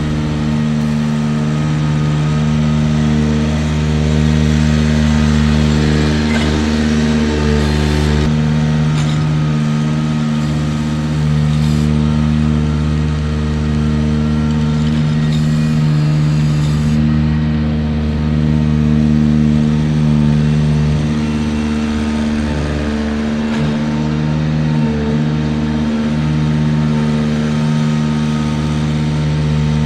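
Ventrac 4500Z tractor engine running steadily at high speed while driving a KC220 stump grinder attachment, with a few brief dips in pitch.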